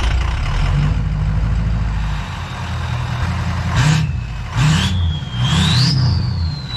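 Ford F-350's 6.0-litre Power Stroke V8 turbodiesel with a 5-inch turbo-back straight pipe, freshly started and idling, then revved three times in quick succession from about four seconds in. The turbo whistle climbs higher with each rev.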